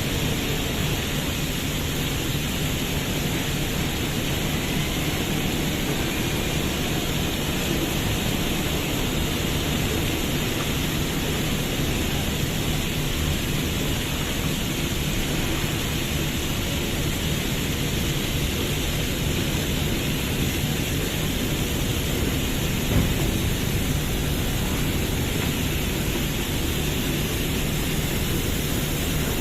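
A large engine running steadily under a constant rushing noise with a low hum, with one brief knock late on.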